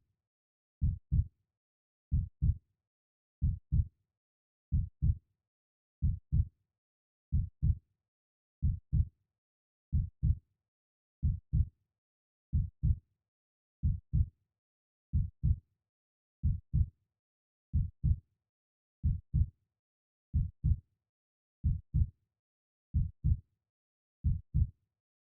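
Slow heartbeat: a steady lub-dub of two low thumps, repeating about every 1.4 seconds, with nothing heard between beats.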